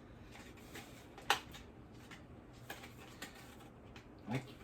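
Hands handling a boxed product's packaging: scattered clicks and light rustles, with one sharp click about a second in, as the item is worked at to get it out of the box.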